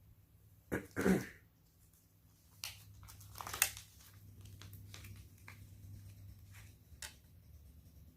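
Small parts of a dog's e-collar being handled: scattered clicks and taps of plastic pieces. A short, loud throaty sound comes about a second in.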